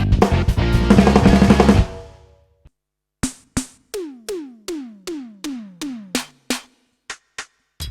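Yamaha DTX720K electronic drum module sounds. A dense drum-kit pattern with pitched notes fades out about two seconds in. After a short gap come single electronic drum hits, among them a run of about seven synth-tom strikes whose pitch drops with each strike.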